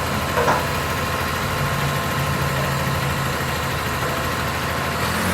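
Caterpillar D6T bulldozer's diesel engine idling steadily, with a brief louder noise about half a second in.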